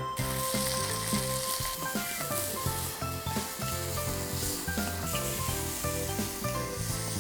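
Food sizzling as it fries in hot oil, a steady hiss that starts abruptly, over background music.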